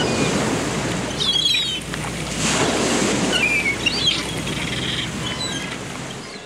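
Birds chirping several times over a steady rushing background noise outdoors.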